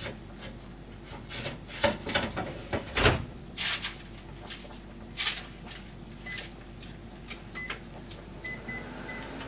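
Knocks and clatter of cookware and utensils being handled at a kitchen stove, loudest in the first half. Near the end come a run of short electronic beeps, like buttons being pressed on an appliance.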